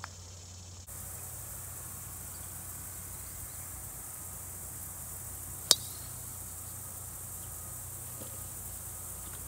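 A golf club strikes a teed-up ball in a single sharp crack of a tee shot, a little over halfway through. Steady high buzzing of insects sits under it.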